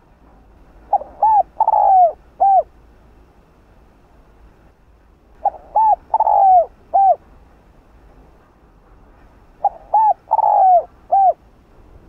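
Spotted dove (Streptopelia chinensis) cooing its song three times, about four seconds apart. Each phrase has four notes: two short coos, a longer coo that falls in pitch, and a short final coo.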